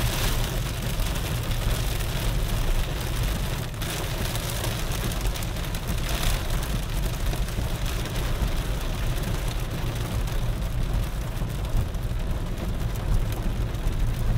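Heavy rain drumming on a car's roof and windshield, heard from inside the cabin of the moving car over a steady low rumble of engine and road noise.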